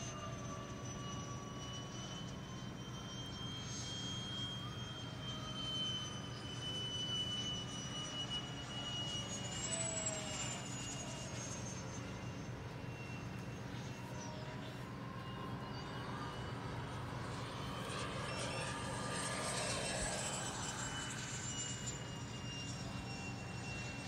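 Electric ducted fan of a large scratch-built radio-controlled DC-10 model jet on its landing approach: a steady high whine whose pitch glides slowly up and down, over a constant low hum.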